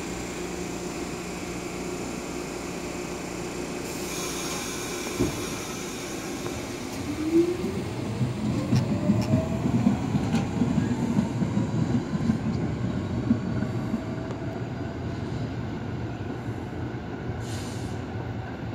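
R46 subway train pulling out: a single knock about five seconds in, then the motors whine up in pitch as it accelerates, with wheels clicking over the rail joints. The sound fades as the train draws away.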